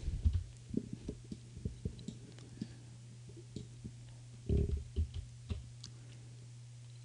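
A steady low hum, with soft low thumps and faint clicks scattered through it. The loudest thumps come in a short cluster about four and a half seconds in.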